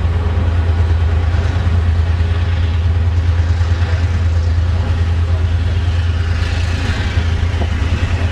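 GM-built diesel locomotive of a Taiwan Railways blue ordinary train, its engine running with a steady low hum and constant train noise over it.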